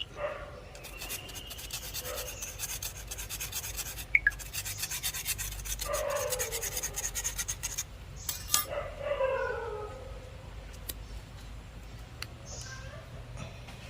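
Rapid scraping and rubbing by hand, a dense run of scratchy strokes, with a sharp click about four seconds in and two brief falling pitched sounds about six and nine seconds in.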